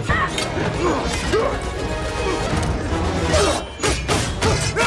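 Action-film fight soundtrack: a music score under repeated hits, crashes and smashing impacts, with brief vocal sounds between them.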